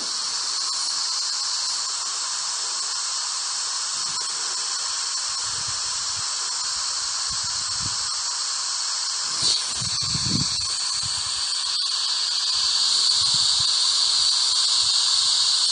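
Steady hiss of static from a ghost-box radio app, with a short blip about nine and a half seconds in and faint broken fragments just after; the static grows a little louder over the last few seconds.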